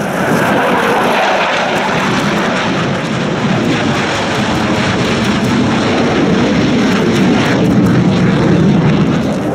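Chengdu J-10 fighter jets of an aerobatic display team flying past: a loud, steady rush of jet engine noise, with a faint falling sweep in the first second as a jet passes.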